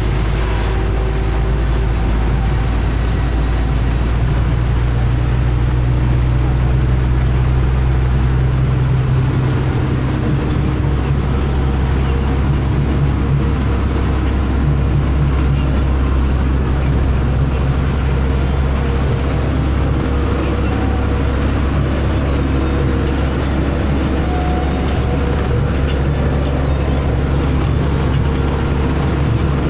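Steady low drone and road rumble of a bus engine, heard from inside the passenger cabin while the bus is moving.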